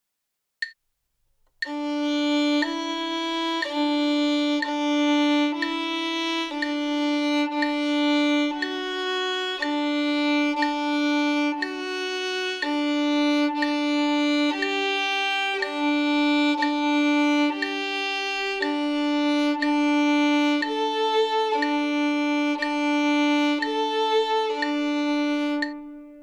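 Solo violin playing a slow exercise of separate bowed notes, about one a second, returning again and again to a low D with short steps up to the neighbouring notes. A short click sounds just before it begins, and the last note rings out and fades.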